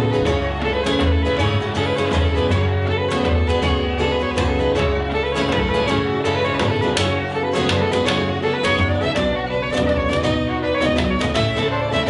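An acoustic band playing an instrumental passage: a fiddle melody over rhythmically strummed acoustic guitar, with no singing.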